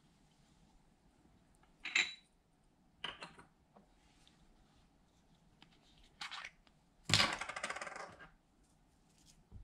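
Loose glitter and makeup powder shaken out of small plastic jars into a glass baking dish: several short bursts of light clicking and pattering. The longest and loudest burst, a quick run of fine ticks, comes about seven seconds in.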